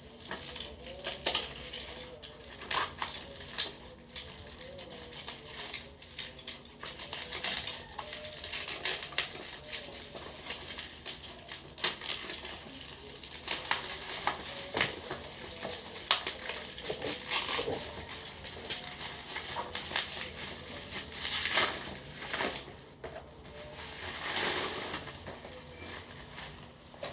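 Handling noise from unboxing roll-on perfume bottles: rustling and crinkling packaging with scattered clicks and taps of small objects.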